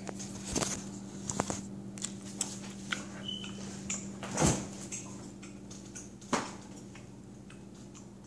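Stainless-steel refrigerator door pulled open by its handle, with a louder thump about four and a half seconds in amid light knocks and clicks of handling, and another knock a little later. A steady low hum runs underneath.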